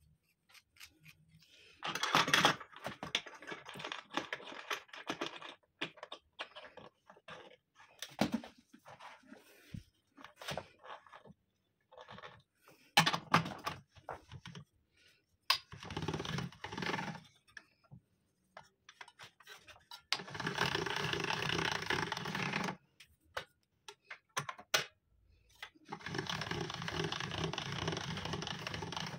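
Hand-cranked stainless steel pasta machine turned in spells of a few seconds, its rollers and gears giving a dense rattling clatter as dough is pressed through the smooth rollers into a sheet. Sharp single metal clicks and knocks fall between the spells of cranking.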